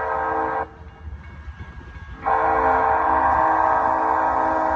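Union Pacific freight locomotive's multi-chime air horn sounding for a grade crossing. One long blast cuts off less than a second in, and after a short pause a second long blast starts a little over two seconds in and holds.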